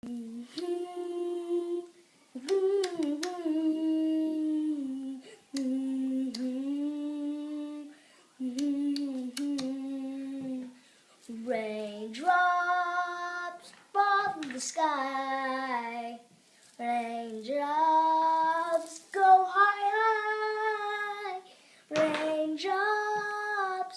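A young voice singing unaccompanied, holding long wordless notes of a second or two each with short breaths between; from about halfway the notes go higher and louder.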